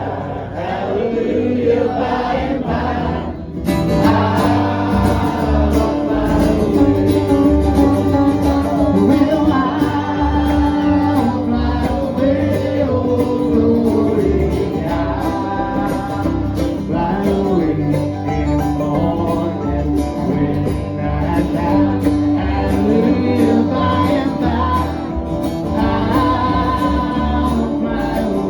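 Country gospel music: singing over acoustic guitar and band. About three and a half seconds in, the full band comes in and the sound gets fuller.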